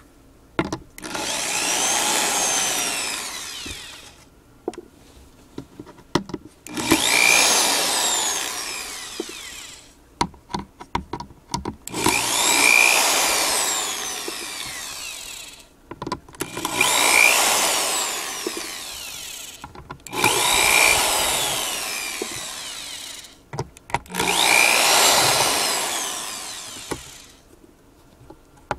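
Power drill driving out the screws that hold a subwoofer driver in its cabinet: six runs of about three seconds each, the motor's whine rising and falling within each run, with clicks of handling in the pauses between.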